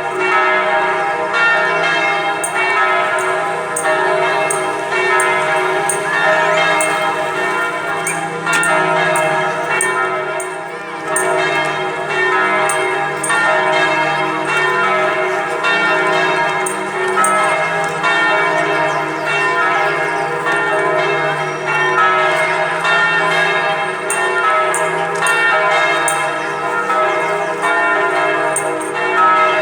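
Church bells of Hanoi's St. Joseph's Cathedral ringing in a continuous peal, many strokes overlapping so that the tones blend into one another.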